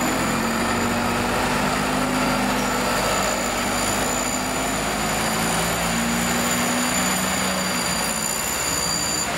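Diesel engine of an FDNY aerial ladder truck running steadily as the truck pulls out and drives off, its low engine note shifting a little as it moves away.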